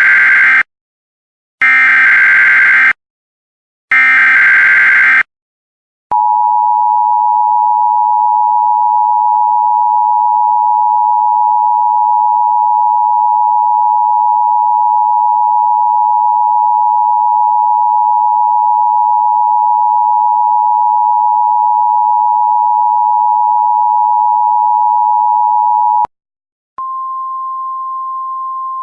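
Emergency Alert System SAME header: three short bursts of warbling digital data tones. These are followed by the EAS attention signal, a steady two-tone sound at about 853 and 960 Hz that lasts about twenty seconds and cuts off abruptly. After a brief gap near the end, a clean, steady 1050 Hz sine tone begins, the weather-radio alert tone.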